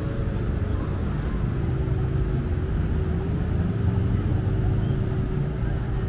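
A steady engine drone holding one pitch, wavering slightly about halfway through, over a continuous low rumble.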